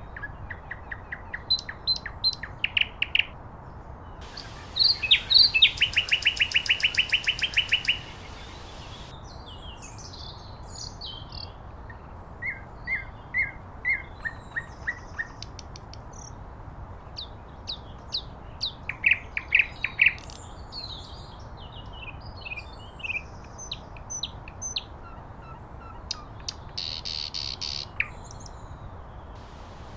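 Common nightingale singing in separate phrases of repeated notes with short pauses between them. The loudest is a fast run of repeated notes lasting about three seconds, starting about five seconds in.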